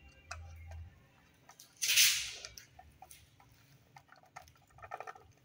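Small clicks and scrapes of a connector being fitted to a metal satellite multiswitch. One short, loud hiss comes about two seconds in.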